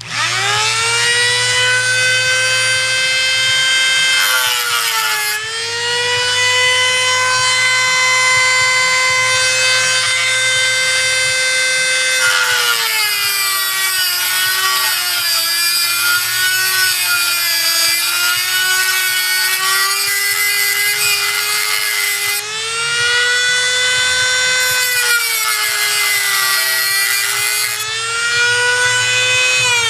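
Corded high-speed rotary tool with an abrasive cut-off wheel, spinning up at the start and then running with a steady high whine. From about the middle, for some ten seconds, and again briefly near the end, its pitch sags and a gritty grinding hiss joins in as the wheel cuts into metal, throwing sparks.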